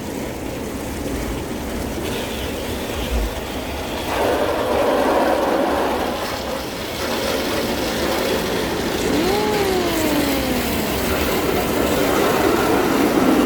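Automatic car wash machine working over the car, heard from inside the car: a steady rush of water spray and brushing that grows louder about four seconds in. A drawn-out 'wow' rises and falls about nine seconds in.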